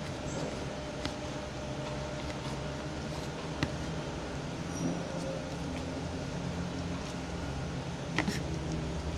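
Steady background hum and noise, like a fan or air conditioner, with a few faint short clicks.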